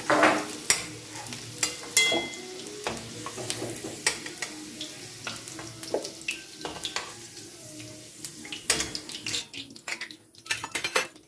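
Fried potato cubes being lifted out of hot oil in a steel kadai with a metal spoon: oil sizzling, with repeated clinks and scrapes of the spoon against the kadai and the steel plate. The sizzle thins out near the end.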